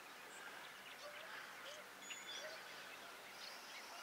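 Faint outdoor birdsong: scattered short chirps and thin whistles from several birds, with three short low upturned calls about a second apart.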